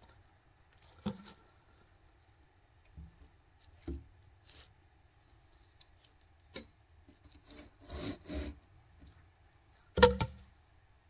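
Wooden logs knocking and rubbing against each other as they are handled and stacked: a few scattered knocks, two short scraping rubs about eight seconds in, and the loudest knock near the end.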